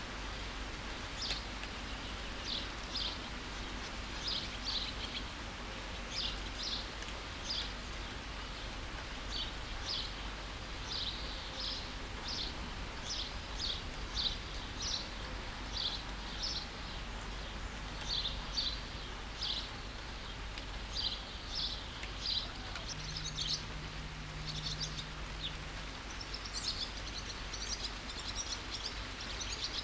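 Steady rain hiss with songbirds chirping over it: short high chirps, one or two a second, turning into busier twittering near the end.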